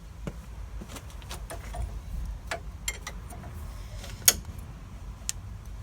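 Scattered metallic clicks and knocks of a wrench being fitted to and worked on the bottom brake caliper slide pin bolt to break it loose, with one sharp loud click about four seconds in.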